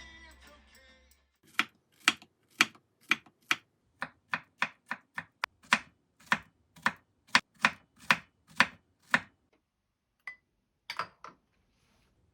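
Knife chopping on a cutting board in a steady run of sharp strikes, about two a second for some eight seconds, then a short pause and three more strikes.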